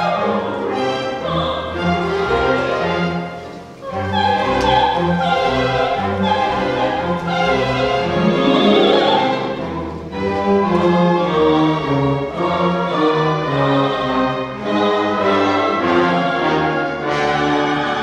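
Classical orchestral background music with strings, in an operatic style, with held notes that change in pitch; it dips briefly just before four seconds in.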